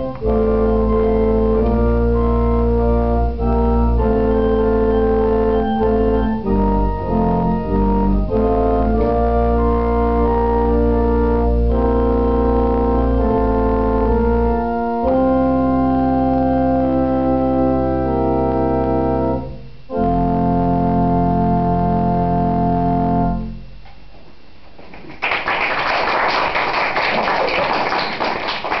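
Organ playing a piece in sustained held chords over a deep bass line, with a brief break about twenty seconds in. The music ends on a final chord, and after a short pause applause breaks out near the end.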